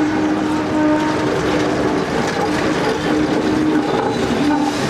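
Hong Kong double-deck electric tram passing close by on street track: a steady low hum that drops out and returns, over a rumbling, clicking wheel-and-rail noise.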